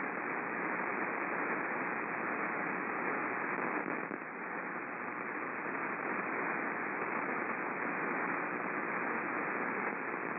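Steady hiss and static from a shortwave radio receiver, with no programme audible through the noise, sounding narrow and muffled because of the receiver's limited audio bandwidth.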